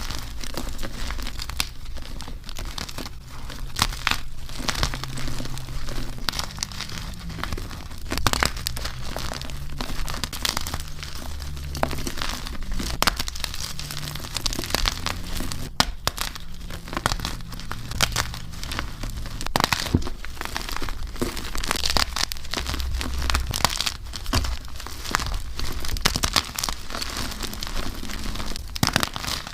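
Gym chalk blocks being crumbled and crushed, a continuous dense crunching with many sharp crackles.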